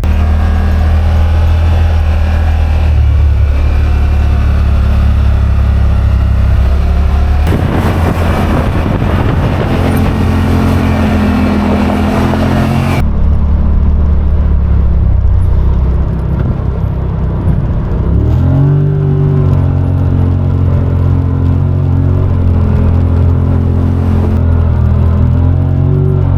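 Side-by-side UTV engine running steadily, with a stretch of rushing noise from about 7 to 13 seconds. The engine revs up around 18 seconds in and holds at the higher pitch.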